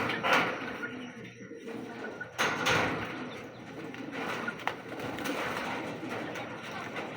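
Racing pigeons cooing in the loft, with a couple of brief louder noises about a third of a second in and again about two and a half seconds in.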